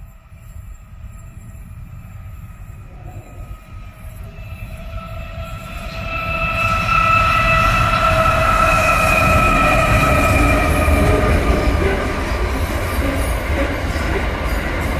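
Aurizon intermodal freight train, led by two diesel locomotives, approaching and passing at speed. A low rumble grows steadily louder, with a steady whine over it that peaks about seven to ten seconds in as the locomotives go by. The rumble of the container wagons follows, a little quieter.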